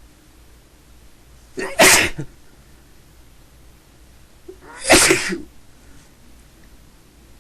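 A person sneezing twice, about three seconds apart, each sneeze a loud, short burst with a brief lead-in just before it: part of a fit of repeated sneezing.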